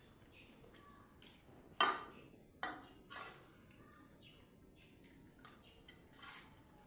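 Spoon clinking and scraping against a dish during a meal: a scattering of sharp clicks, the loudest bunched between about one and three seconds in, and another near the end.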